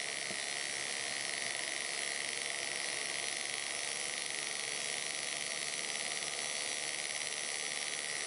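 Electric rotary tool spinning a flapper-peening flap in free air at roughly 4,400 RPM, making a steady high whirring hiss while its motor speed is trimmed.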